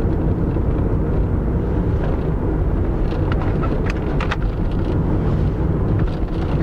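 Engine and road noise inside the cabin of a moving Peugeot 206: a steady low rumble, with a few light clicks about halfway through.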